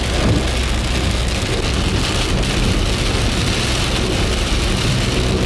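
Heavy rain drumming on a car's windshield and roof during a thunderstorm, heard from inside the moving car as a loud, steady hiss with a low rumble underneath.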